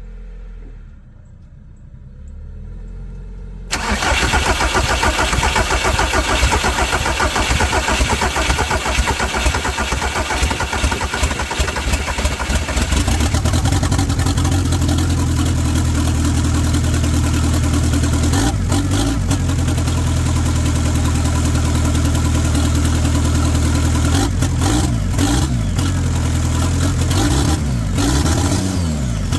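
VW Jetta TDI turbodiesel being cranked by the starter for about nine seconds, then catching and running, a cold start after a fuel filter change with air being purged from the fuel system. The revs rise and fall a few times in the last few seconds.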